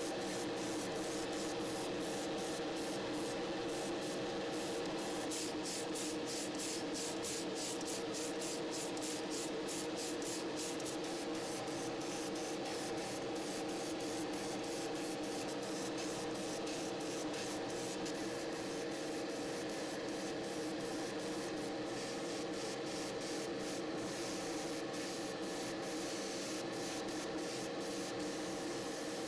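Airbrush spraying primer: a continuous hiss of air and paint that flickers rapidly in its highest part. Underneath it runs a steady low hum.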